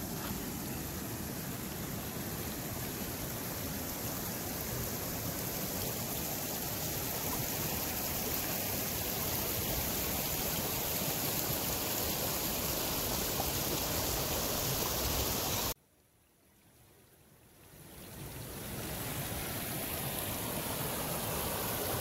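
Shallow river water running over rocks and small riffles, a steady rushing. It cuts out suddenly about three-quarters of the way through and fades back in a couple of seconds later.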